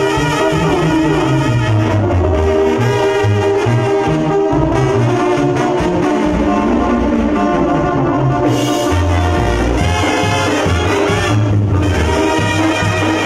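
Live Mexican banda playing: trumpets, trombones and clarinets carry a wavering melody over a stepping sousaphone bass line, with drums. The music is loud and continuous.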